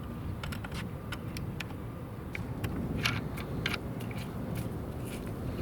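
Steady low rumble of a car driving, with scattered light clicks and rattles at irregular times.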